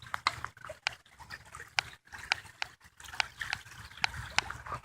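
Irregular sharp clicks and knocks, about a dozen in a few seconds, as a stuck piece of metal is tugged and worked at without coming free.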